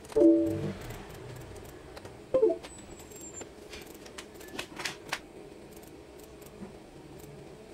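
Epson L120 inkjet printer mechanism working in short spurts: a brief motor whir right at the start, another about two and a half seconds in, then a few sharp clicks and clacks around five seconds in.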